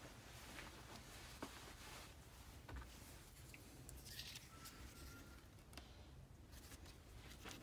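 Near silence: faint room tone with a steady low hum, a few small handling clicks, and a brief rustle about four seconds in as a paper pattern is picked up.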